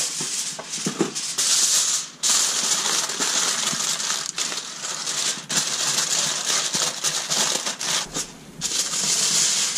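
Aluminium foil pulled off the roll, torn and crimped by hand over a roasting pan: steady crinkling and crackling, broken by two short pauses, about two seconds in and near the end.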